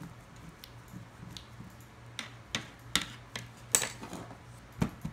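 Irregular sharp clicks and taps, about ten of them, some louder, as a paintbrush and small digging tools knock against the plastic tray of a chocolate dinosaur-fossil excavation kit while the cocoa powder is brushed away.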